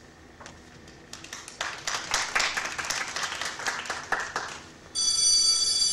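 Audience applauding, building about a second in and dying away after a few seconds. Near the end a loud, steady high ringing tone starts abruptly.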